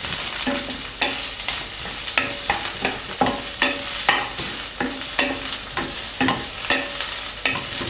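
Wooden spatula stirring and scraping ginger slices and scallion pieces around a stainless steel pan, about two strokes a second, over a steady sizzle of oil on low heat.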